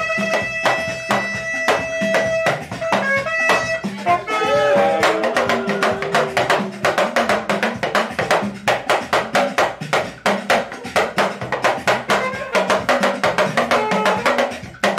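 Saxophone playing over a steady drum and percussion beat, holding long notes and then sliding through a phrase about four seconds in.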